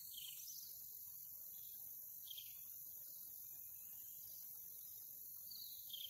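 Faint, steady high-pitched chorus of insects, with a few short falling chirps about two seconds apart.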